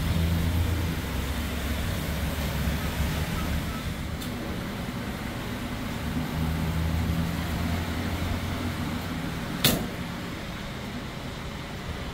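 Gas pump dispensing fuel: a steady low hum with one sharp click near the end.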